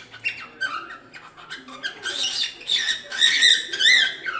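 Cockatiel singing: short chirps and whistles, then about halfway through a louder warbling phrase of rising and falling whistled notes.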